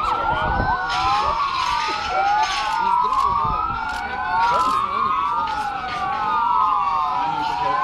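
Several vehicle sirens wailing at once, each rising and falling slowly and out of step with the others, from a convoy of vehicles moving along the road.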